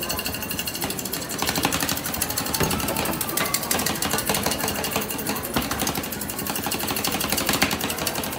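Two metal spatulas chopping ice cream on the frozen steel plate of a rolled ice cream counter: rapid, continuous metal-on-metal tapping.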